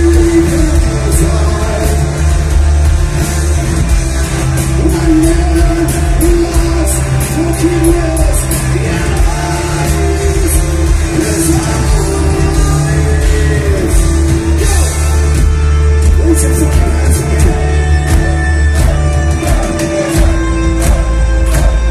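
Heavy metal band playing live, loud: distorted electric guitars, bass and drums with a singer's vocal line over them, in the reverberant sound of a packed club.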